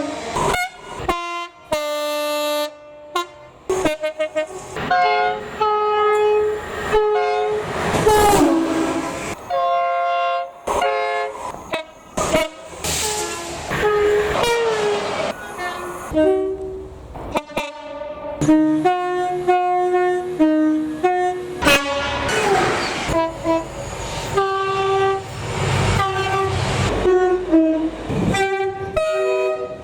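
Electric and diesel train horns sounded repeatedly as trains pass: fast runs of very short blasts alternating with longer held notes on several pitches, tooted out as tunes. The noise of a passing train runs under the horns partway through and again in the last few seconds.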